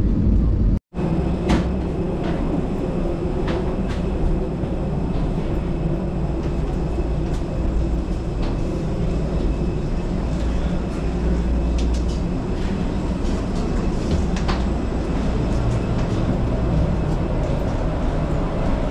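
Steady low rumble and hum of airport machinery heard from inside a jet bridge, with scattered footsteps and light knocks from passengers walking through it.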